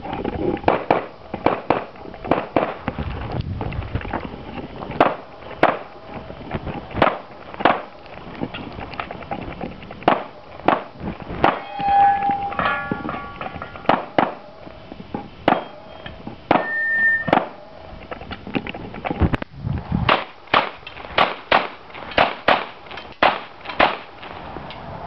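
Handgun fired in rapid strings of sharp shots, with short pauses between strings, during a timed practical-shooting course of fire. A few brief ringing tones sound about halfway through.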